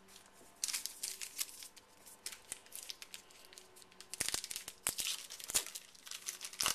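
Plastic trading-card pack wrapper crinkling and tearing open, in irregular rustling bursts, with three sharp clicks in the second half.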